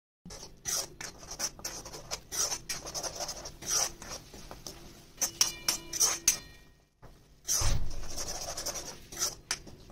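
Spatula scraping and pushing a thick coriander-garlic-chilli paste around a non-stick frying pan as it is fried, in quick irregular strokes. A brief squeak a little past halfway.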